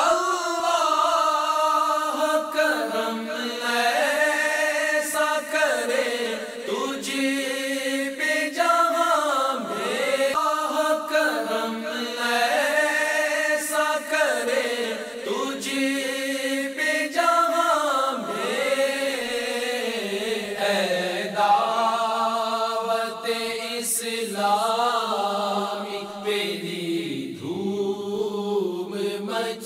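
Unaccompanied devotional vocal chanting: a manqabat melody sung in long, wavering, drawn-out notes over a low held vocal hum, with no instruments.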